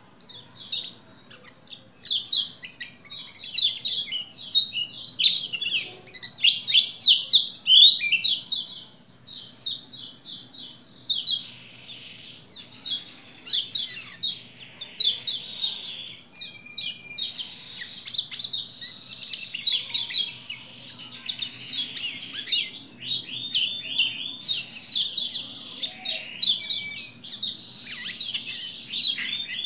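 Pleci lombok (a yellow white-eye) in full song: a fast, nearly unbroken stream of high twittering chirps and trills. A faint steady hum runs underneath.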